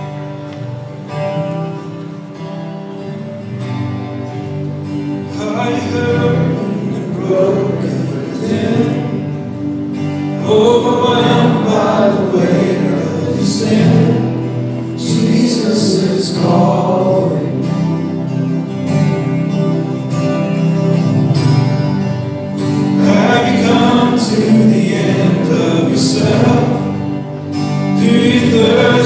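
A church worship band playing a slow song. Singing comes in about five seconds in, and the music swells over the first ten seconds.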